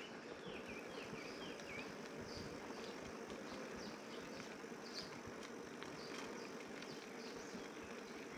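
Forest ambience: a steady hum of insects, with a quick run of short falling bird chirps in the first two seconds and scattered high chirps after.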